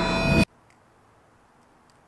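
A steady car hum cuts off abruptly about half a second in, leaving near silence with a few faint ticks.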